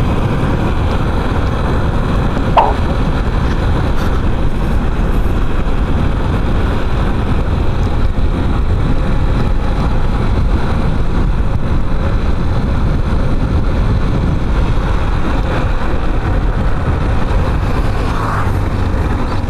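Riding noise on a Yamaha Factor 150 motorcycle: steady wind rush over the microphone with the bike's engine running underneath as it rides down a slope. A brief sharp knock about two and a half seconds in.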